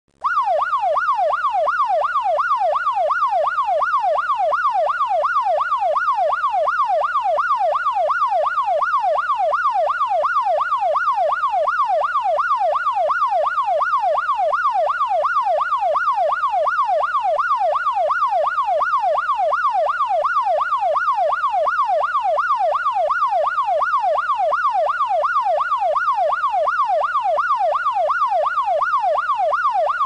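Electronic police siren in a fast yelp, its pitch sweeping rapidly and evenly up and down without a break.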